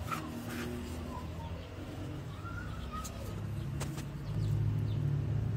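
Scissors snipping radish leaves, a few sharp clicks, over a low engine hum that grows louder about four seconds in. Faint bird calls come and go.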